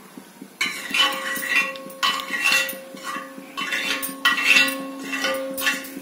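A steel ladle scraping and clinking on a flat griddle pan as it spreads oil over the surface, in irregular strokes, with a faint steady hum underneath.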